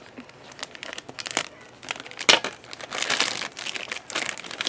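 A foil blind bag being torn open and crinkled in the hands, with irregular crackling and a sharp rip about two seconds in.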